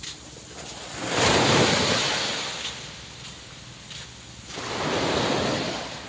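Small waves breaking and washing up a sand beach in two surges of rushing surf: one about a second in, the other around four and a half seconds in, each swelling and then fading away.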